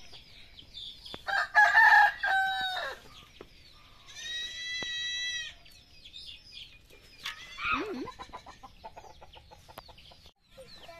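Farmyard fowl calling: several loud, harsh calls, then one long, level call about four seconds in, and a shorter call near the end.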